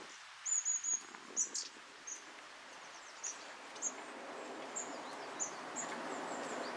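Long-tailed tits calling: thin, very high-pitched contact calls, a quick run of them about half a second in, then single short calls every second or so.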